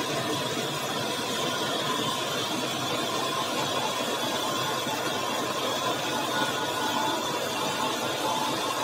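New Holland TC5.30 combine harvester running steadily while unloading, its unloading auger sending a stream of grain from the spout onto a pile.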